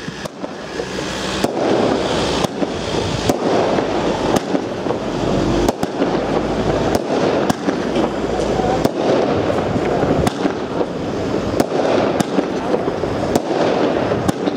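Comet fireworks battery (Iron Heat) firing shot after shot, about one sharp report a second over a continuous dense rushing noise.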